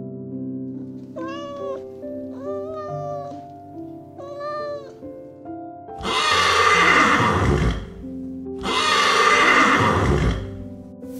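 A cat meowing three times over soft background music, then a horse calling twice: two long, loud whinnies of about two seconds each, the loudest sounds.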